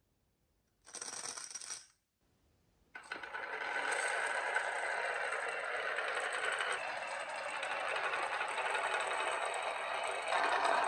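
Marbles rolling and clattering along a marble run track: a short rattle about a second in, then after a pause a steady stretch of rolling clatter from about three seconds on.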